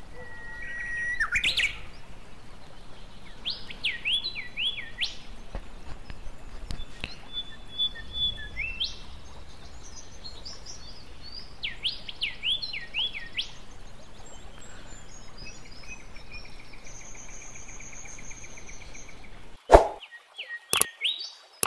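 Birds chirping in the background: short runs of quick up-and-down chirps, with a steady trill for a couple of seconds near the end. Two sharp clicks near the end.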